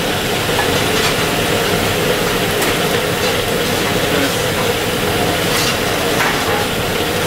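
Steady, loud mechanical hum and rush of a ship's galley machinery, with a steady tone running under it and a few faint clinks of kitchen utensils.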